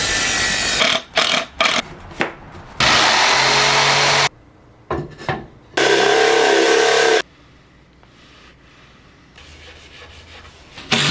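Power tool cutting wood in three bursts, each a second or two long, with knocks and clatter of wood between the cuts. The last few seconds are quieter.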